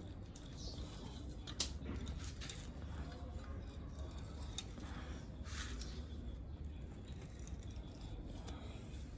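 Scattered light clicks, scrapes and rustles of hand work on small metal parts, with one sharper click about one and a half seconds in, over a steady low hum.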